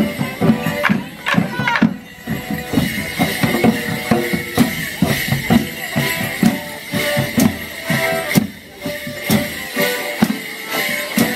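Live folk band playing a border morris dance tune outdoors: melody instruments over a steady, driving drum beat, with sharp knocks on the beat from the drums and the dancers' sticks.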